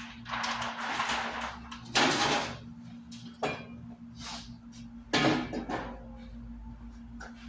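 Workshop handling noises as materials are moved about on a worktable: stretches of scraping and rustling, with sharp knocks about two seconds in and again about five seconds in, over a steady low hum.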